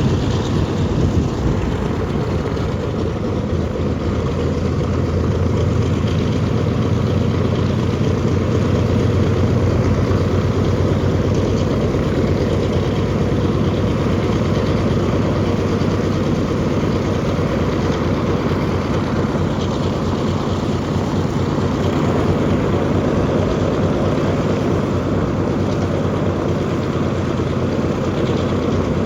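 The four Wright R-3350 radial engines of a B-29 Superfortress running steadily at low power on the ground, with their propellers turning: an even, deep drone that holds its level throughout.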